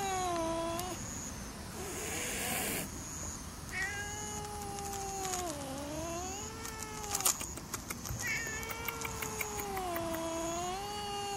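Tabby stray cat yowling a drawn-out warning at a person: long moaning calls, each several seconds, slowly sliding down and back up in pitch, one after another with short gaps. It is a threat display, the cat warning the person off from a distance.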